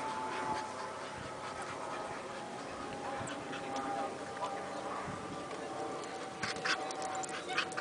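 Terriers held back by their handlers, whining and whimpering with eagerness to go after the quarry: one long high whine slowly falling in pitch, with a few short sharp scuffling noises near the end.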